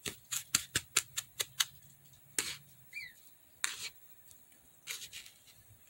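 Metal spoon stirring and scraping seasoned flour on a disposable plate: a quick run of about eight scraping strokes in the first second and a half, then a few slower strokes, with one short squeak about three seconds in.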